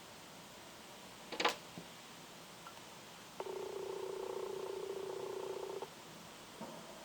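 A sharp tap about a second and a half in, likely a small bird pecking at window glass, then a steady buzz lasting about two and a half seconds that starts and stops abruptly.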